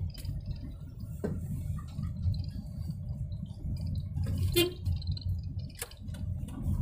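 Steady low rumble of a vehicle on the move, with a few short sharp ticks or knocks, the loudest a little after the middle.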